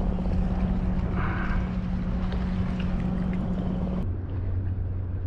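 Minn Kota electric trolling motor humming steadily on a kayak, over water and wind noise. About four seconds in, the hum drops to a lower pitch.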